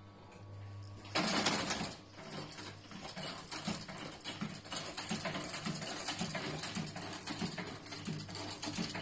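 Adler 43-3 arm-upwards boot sewing machine stitching a leather strap. It opens with a low steady hum from its electric motor. About a second in there is a loud, brief rush of noise, and then a fast, steady mechanical clatter of needle and feed.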